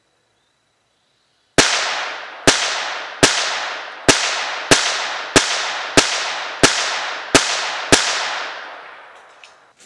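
Ruger Mark III .22 LR semi-automatic pistol firing ten shots in steady succession, about one and a half a second. Each sharp crack trails off in an echo that fades out over the second after the last shot.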